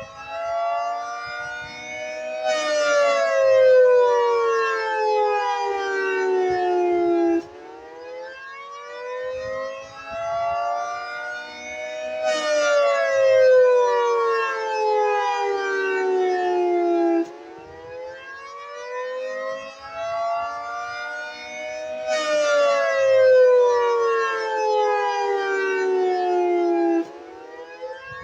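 High-pitched Federal Signal 3T22 three-tone outdoor warning siren sounding the Attack signal: its chord rises for about five seconds, then falls for about five, repeating about three times. The loudness drops suddenly at each low point.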